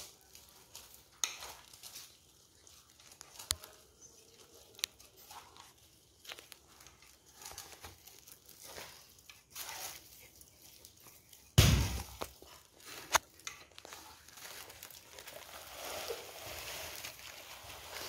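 Hand mixing a thick palm-fruit and rice-flour batter in a metal pot: soft squishing and scraping, with scattered small clinks of bangles against the pot. A single heavy thump a little past halfway, then a sharp click.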